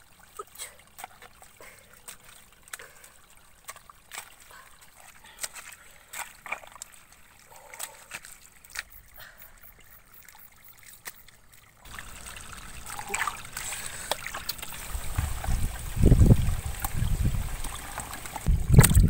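Hands working wet mud and muddy water: scattered small squelches and splashes. About twelve seconds in this gives way to a louder, steadier wash of noise with heavy low rumbling near the end.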